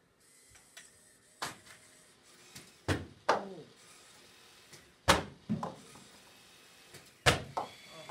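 Sharp knocks and bangs from a small competition robot and its plastic rings on the field, each with a brief ringing tail. They come mostly in pairs about two seconds apart, and the loudest are in the middle and near the end.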